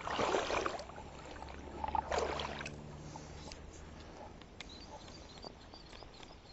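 Kayak paddle strokes: two short swishing splashes of the blade through the water, about two seconds apart.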